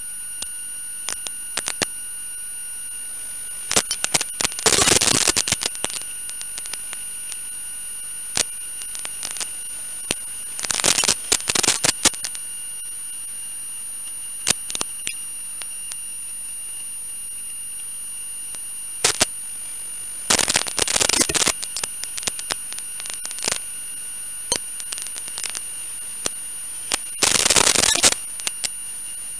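Electrical noise on the audio channel of an analog 5.8 GHz FPV video link: a steady hiss with constant high whining tones, broken four times by loud bursts of crackling static, with scattered clicks between them. This interference is typical of an audio output that is not grounded.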